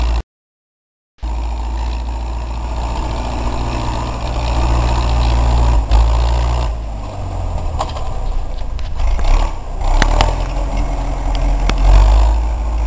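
Ursus 4011 tractor's diesel engine running steadily as the tractor drives off through snow, after a short break in the sound just after the start.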